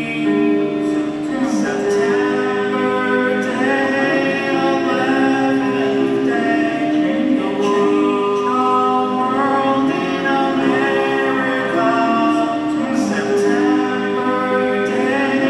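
A man singing, holding long notes with short glides between them.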